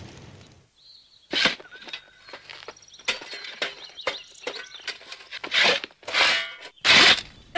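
Shovel blade striking and scraping into dry, stony dirt again and again: a digging sound effect. The strikes come quicker and louder near the end.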